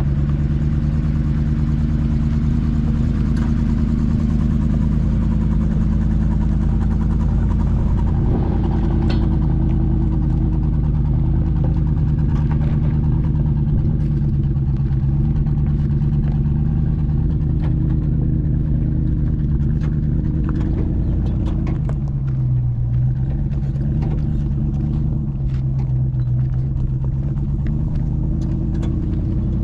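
Supercharged Range Rover P38 engine running steadily as the vehicle drives off-road, with scattered knocks and clicks over the top. About two-thirds of the way through, the engine note drops and wavers.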